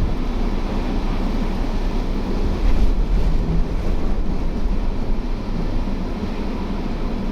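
Strong blizzard wind buffeting the microphone: a loud, steady, low rumble of wind noise, with a stronger gust just before three seconds in.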